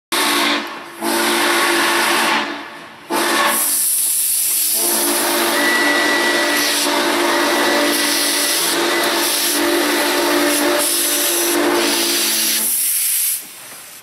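Norfolk & Western J-class 611 steam locomotive's chime whistle sounding a chord over a loud steam hiss. It gives a short blast, then one of about a second and a half, then a long blast of about ten seconds that stops near the end.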